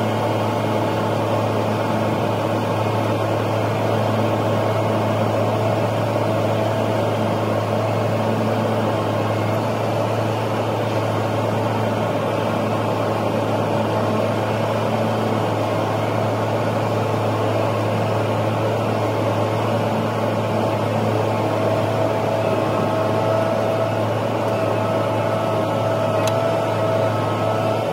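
A vehicle's engine running steadily at a low, even pace while it moves a car that will not run. A higher steady whine grows stronger over the last few seconds.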